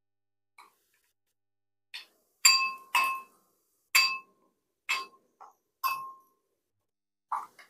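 Steel spoon clinking against a glass mixing bowl while stirring a wet spice paste: about ten separate clinks, each followed by a short glassy ring, the loudest pair about two and a half and three seconds in.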